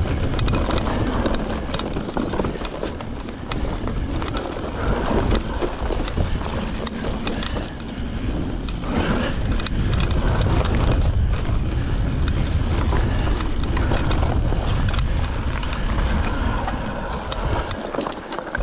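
Mountain bike riding fast down a dirt and gravel trail: wind buffeting the microphone and tyres rumbling over the ground, with frequent sharp clicks and rattles from the bike over bumps.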